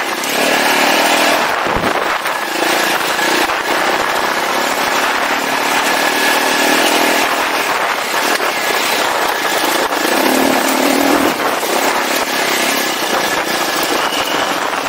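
KTM 450 XC-F single-cylinder four-stroke dirt bike engine running under way, its pitch rising and falling as the throttle is worked.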